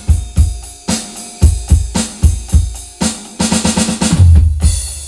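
Drum kit played hard, bass drum and snare in a steady beat. About three seconds in comes a quick fill of rapid hits, then a long low boom.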